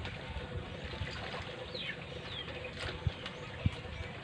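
Quiet outdoor background hiss with a few short, falling bird chirps about midway, and a couple of soft low knocks.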